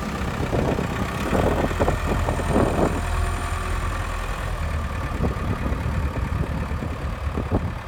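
Komatsu PC160LC-7KA hydraulic excavator's diesel engine running steadily, with irregular louder noises from the machine during the first few seconds.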